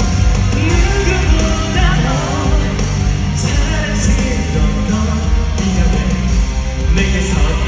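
A male singer's voice over a full rock band through a concert PA, with a steady drum beat and heavy bass, in a live rock arrangement of a ballad.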